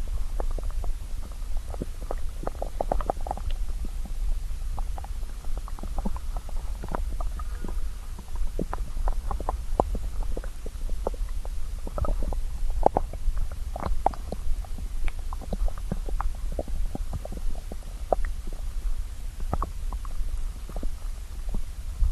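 A hungry, empty stomach growling and gurgling: many short, irregular gurgles over a steady low rumble.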